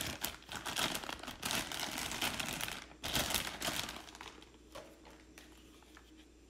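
Clear plastic bag crinkling and rustling as a cordless reciprocating saw is pulled out of it. The crinkling dies away about two thirds of the way through, leaving a few faint handling clicks.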